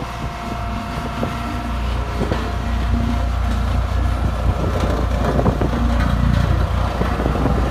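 Single-drum road roller's diesel engine running as the machine drives towards the camera over a dirt road, a steady low drone that grows louder over the first few seconds. Scattered crackles of gravel crunch under the drum and tyres.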